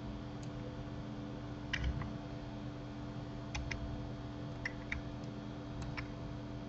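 Scattered sharp clicks of a computer mouse and keyboard, some in quick pairs, the loudest cluster about two seconds in. A steady low electrical hum runs beneath them.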